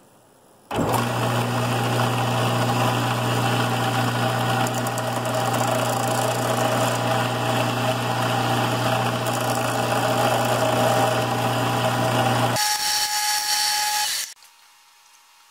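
Bench belt sander running with a steady motor hum, while a steel connecting rod's big-end corners are ground against the belt to take weight off for balancing, giving a rough grinding rasp over the hum. Near the end the motor hum stops and the belt runs down for about a second and a half before stopping.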